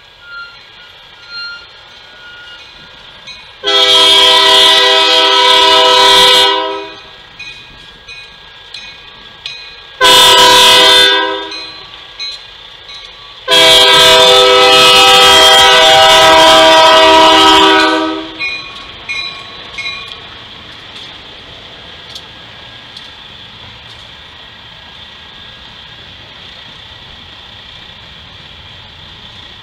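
Union Pacific diesel locomotive's air horn blowing for a grade crossing: a long blast, a short one, then a long one, the standard crossing signal. After it comes the steady noise of the freight train rolling past.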